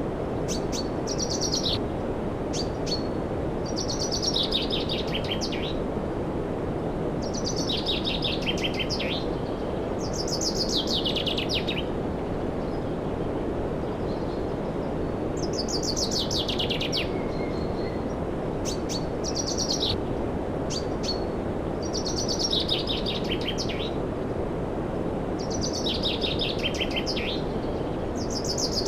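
A songbird repeats a short, trilled phrase that drops in pitch, about every three seconds, over a steady rushing noise.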